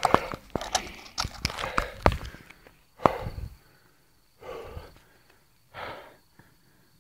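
Handling noise from a phone camera being moved about: a run of knocks, clicks and rubbing, then two short breathy puffs near the end.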